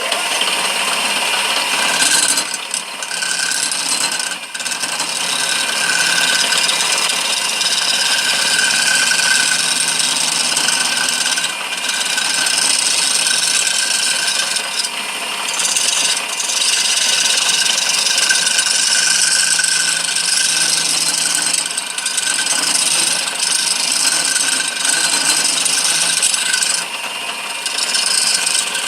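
Homemade lathe cutter scraping and cutting a handle as it spins on the lathe, a continuous rough shaving noise that eases off briefly every few seconds as the tool is shifted, over the steady hum of the lathe's motor.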